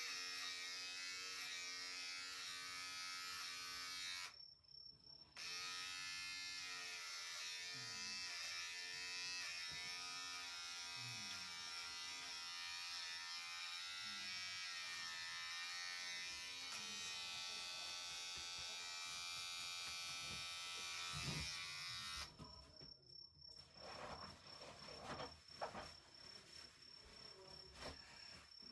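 Electric hair clippers running with a steady buzz as they cut short hair, the pitch wavering slightly as the blade meets the hair. They switch off for about a second early on, start again, and stop for good about six seconds before the end.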